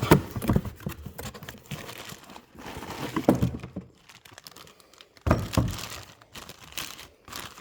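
Packaging of a new brake master cylinder being opened and handled: irregular crinkling and tearing of the wrapping, with a few sharper clicks and knocks.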